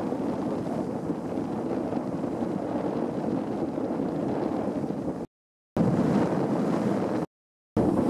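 Wind buffeting the camera microphone, a steady low rushing noise, broken by two short gaps of dead silence about five and seven seconds in.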